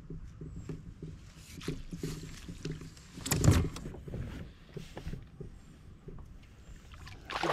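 Spinning reel being wound in while a hooked perch is played from a kayak, its turning making a soft, even rhythm of about three knocks a second. There is one loud thump about three and a half seconds in.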